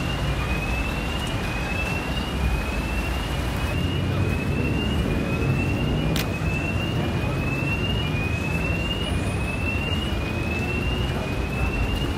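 City street traffic: a steady low rumble of passing cars. Over it, a high electronic tone rises in pitch and repeats about once a second. A single sharp click comes about six seconds in.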